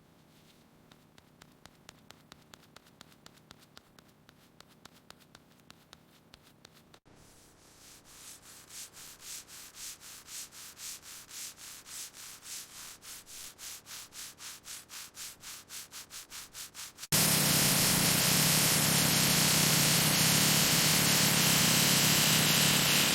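Hand sanding on a car body panel, in rhythmic back-and-forth strokes at about three a second that grow louder partway through. About three-quarters of the way in, a loud steady hiss cuts in suddenly.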